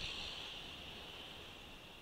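Muffled road traffic and riding noise heard through a bicycle-mounted camera, with a low rumble under a steady high-pitched hiss that swells briefly near the start.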